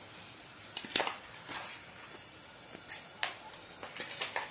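Panch phoron seeds crackling in hot mustard oil in a karahi: irregular sharp pops every half second or so over a faint hiss.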